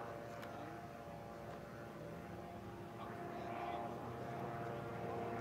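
Mosquito ultralight helicopter's engine and rotor running with a steady drone, growing a little louder about three seconds in.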